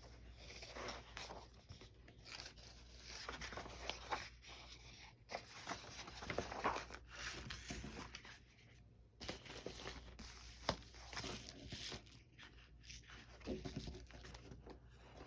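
Vintage paper doll books being handled: the paper rustles and crinkles irregularly as pages and covers are moved, with a few sharp soft taps.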